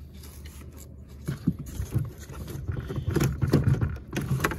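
Irregular clicks, knocks and rubbing as a plastic car door trim panel and its wiring are handled, starting about a second in, over low rumbling bumps.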